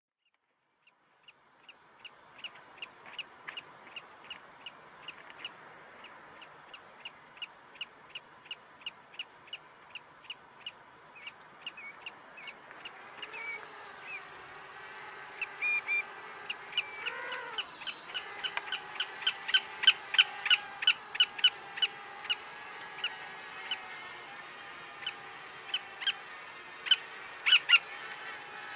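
A bird chirping over and over, about two or three short chirps a second, louder in the second half. About halfway through, the Parrot Bebop 2 quadcopter's motors and propellers start up with a steady whine of several tones. A few seconds later the whine briefly rises and falls as the drone lifts off and climbs.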